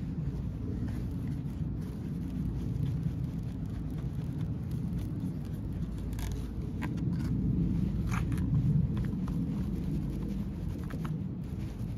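Muffled low rumble and rustling of clothing and cloth brushing against the microphone, with a few light clicks in the middle.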